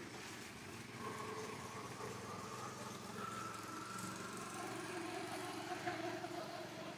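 A motor vehicle engine running, its pitch shifting a few times.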